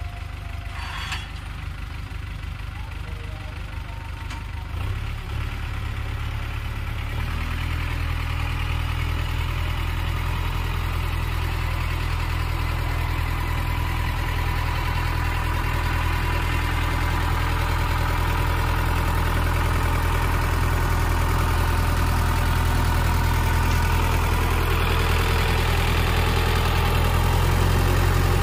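Sonalika tractor's diesel engine running steadily while pulling a potato planter, getting louder as the tractor comes closer.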